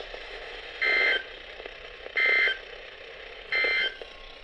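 Three short bursts of EAS SAME digital data tones from a NOAA Weather Radio broadcast, each a raspy two-tone warble under half a second long, about a second and a half apart, with faint receiver hiss between them. They are the end-of-message code that closes the alert.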